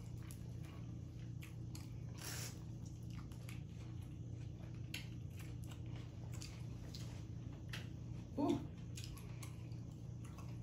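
Boiled crawfish being cracked and peeled by gloved hands: scattered small cracks and wet squishes of shell, with a louder crackle about two seconds in. A brief murmured voice comes about eight and a half seconds in, over a steady low hum.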